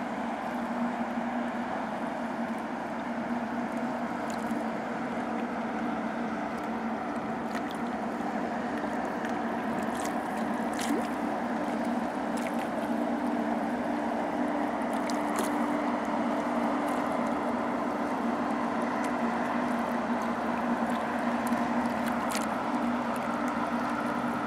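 Trillium-class self-unloading lake freighter passing close by, with a steady low hum from its machinery over the rush of its wash on the water.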